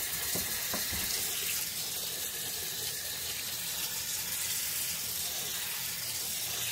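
Kitchen tap running in a steady stream into a bowl of leafy greens, filling it with water to soak them.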